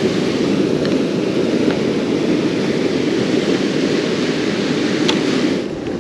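Steady rush of ocean surf washing over rocks, with a few faint clicks.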